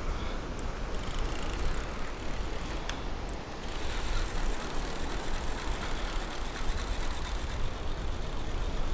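A spinning fishing reel being cranked to retrieve a hooked fish, a steady mechanical whirring with faint clicks, over steady wind and surf noise.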